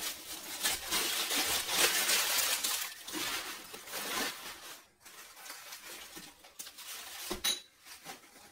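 Packaging rustling and crackling as a parcel of baked clay pieces is unwrapped, loudest over the first few seconds, then a single sharp knock near the end.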